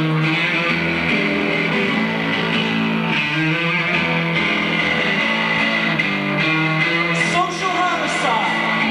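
Amplified electric guitar played live, holding sustained notes and chords that change every second or so.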